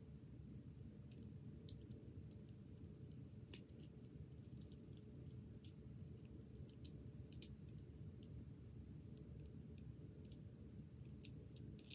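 A Rubik's Cube being turned by hand: faint, irregular clicks as its layers are twisted, over a steady low background hum.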